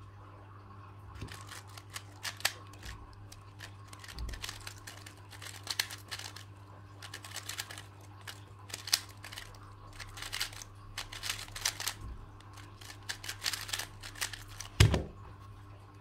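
A plastic 3x3 speed cube turned rapidly through a solve: bursts of fast clicking and clacking turns with brief pauses between them. Near the end there is one loud thump as the solve finishes and the timer is stopped.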